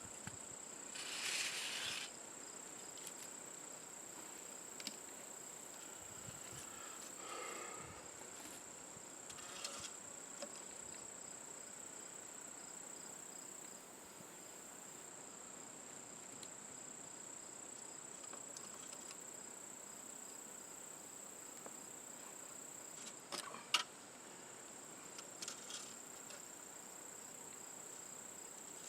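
Insects give a steady, high-pitched drone throughout. A few brief scrapes and knocks come through it, the sharpest about three-quarters of the way in.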